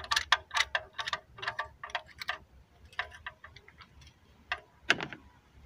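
Ratchet wrench clicking as a spark plug is screwed back into a Renault 1.4 engine: a quick run of ringing metallic clicks, about four or five a second, for the first two seconds or so, then sparser clicks and one louder click near the end.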